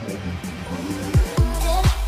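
Electronic dance music from a DJ mix. The kick drum drops out briefly and returns about a second in, and a synth melody comes in with it.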